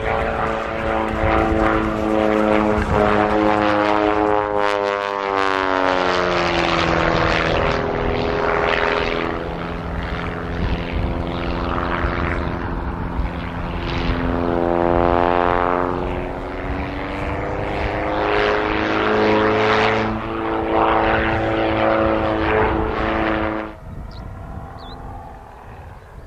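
Piston-engined propeller aircraft running loudly, the engine's pitch sliding down, later climbing back up and shifting again, as with changing power or an aircraft passing. The engine sound cuts off abruptly near the end.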